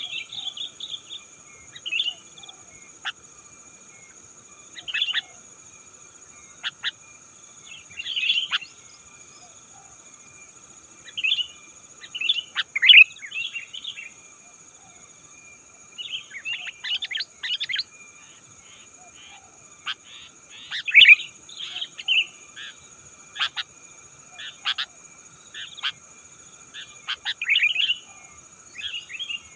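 Sooty-headed bulbuls calling: short bursts of quick, chattering notes, repeated every second or two at uneven intervals, with the loudest bursts around the middle. A steady high insect drone runs underneath.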